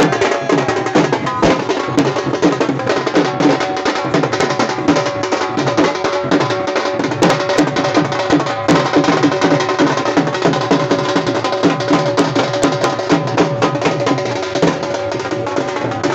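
Dhol and side drums beaten with sticks together in a busy, continuous rhythm, strokes following one another closely throughout.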